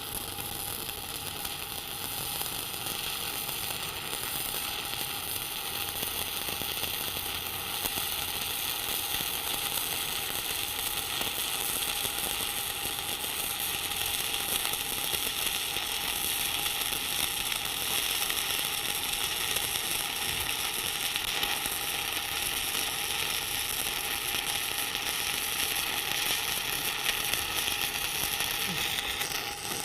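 Stick welding arc sizzling and crackling steadily while a root pass is laid at about 85 amps, then cutting off right at the end.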